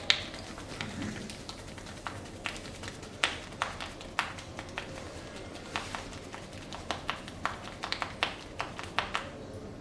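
Hands tapping and slapping on a client during a barber's massage: a long run of short, sharp taps at uneven spacing, a few a second.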